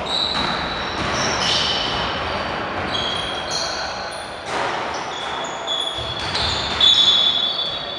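Basketball play on a gym court: sneakers squeaking on the floor in many short high squeaks, with the ball bouncing. A sharp knock about four and a half seconds in.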